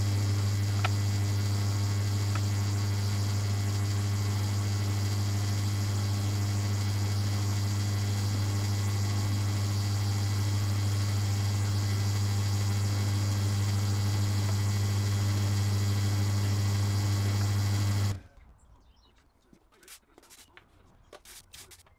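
Benchtop drill press running with a steady electric-motor hum while its bit drills into a wooden block. The hum cuts off suddenly near the end, leaving a few faint clicks.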